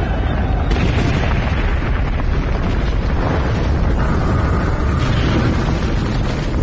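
Animated-series sound effect of a sustained rumbling explosion: a loud, steady, noisy rumble that turns brighter and harsher about a second in.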